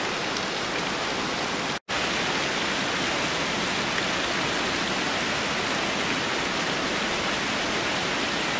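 Steady rushing hiss of a waterfall pouring down, cut off briefly about two seconds in.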